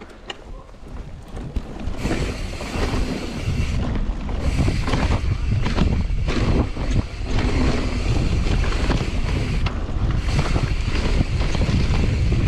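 Heavy wind buffeting on the microphone, building over the first two seconds and then holding, with many short knocks and rattles through it, as the rider picks up speed on a mountain bike.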